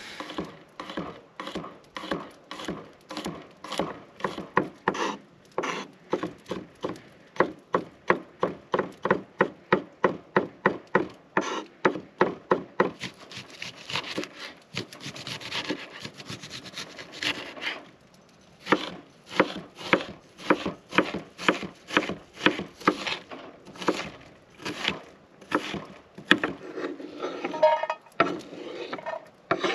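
Kitchen knife chopping an onion on a wooden cutting board: a steady run of sharp knocks of the blade on the board, about three to four a second. In the middle there is a stretch of denser slicing and scraping.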